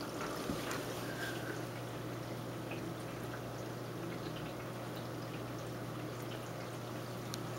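Aquarium water trickling and pouring steadily, with faint drips and small splashes over a steady low hum.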